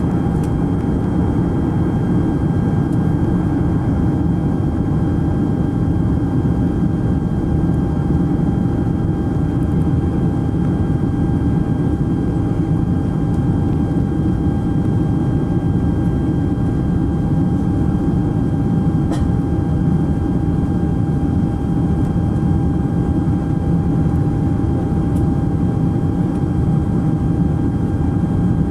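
Steady cabin roar inside a Boeing 747SP airliner in flight, the low rush of engines and airflow, with a thin steady whine over it. The wing flaps are extended for the approach.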